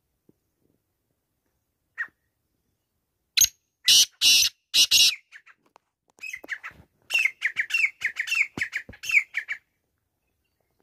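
Male black francolin calling: a short note, then four loud harsh, grating notes, followed by a quick run of shorter rasping notes that stops about two-thirds of the way through.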